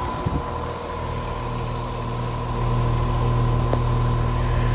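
Heat pump outdoor unit running in cool mode: a steady compressor hum with condenser fan noise. A couple of light knocks come near the start, and the hum grows louder about two and a half seconds in.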